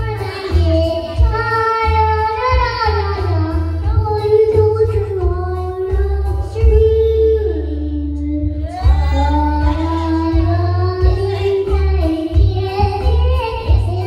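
A young girl singing a song into a microphone, with long held and gliding notes, over a loud backing track with a pulsing bass.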